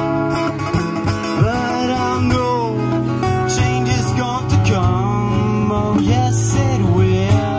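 Two acoustic guitars playing an instrumental passage live, with a melody line that bends up and down in pitch over a steady low accompaniment.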